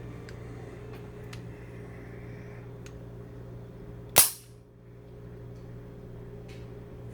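A single sharp metallic snap from the action of a Llama Especial .32 ACP pistol, about four seconds in, ringing briefly. A few faint clicks of the gun being handled come before it, over a steady low hum.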